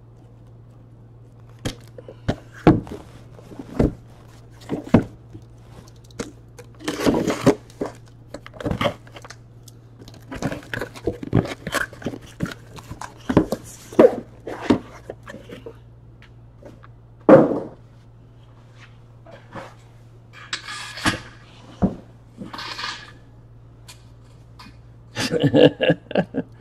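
Cardboard hobby boxes of trading cards being handled: irregular knocks and taps as the boxes are lifted from a shipping case and set down on a table, with a few brief scraping and rustling sounds of cardboard and wrap sliding.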